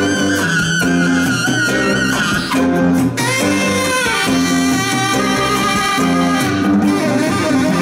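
Live band playing an instrumental passage: a saxophone leads with a long held, wavering note, breaks off briefly about three seconds in, then carries on higher, over a steady bass line and drums with bayan accordion.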